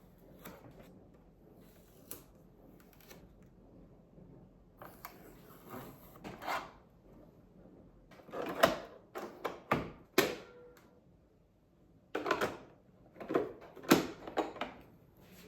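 Hard plastic parts of a coffee maker being handled and fitted together: irregular clicks, knocks and rustles, sparse at first and busier in the second half.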